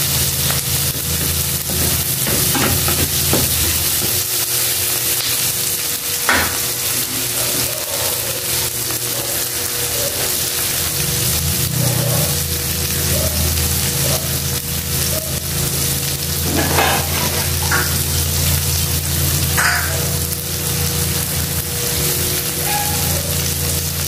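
Garlic, onion and tomato sizzling as they sauté in oil in a pan, over a steady low hum. A wooden spatula stirs them in the first seconds, and a few short knocks come later.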